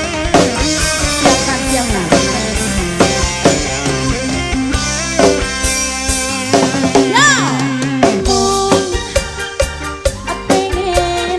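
Live dangdut koplo band music in the fast pargoy party-dance style: a busy drum and percussion beat under a melodic lead line. A rising pitch glide sounds about seven seconds in.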